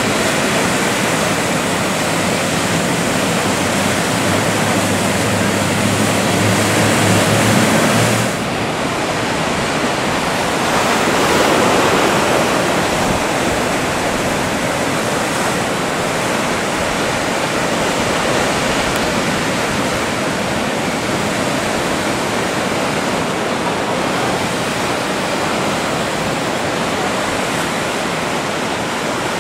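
Ocean surf breaking and washing steadily, with a louder wave around eleven seconds in. For the first eight seconds a motorboat's engine drones low under the surf, then stops abruptly.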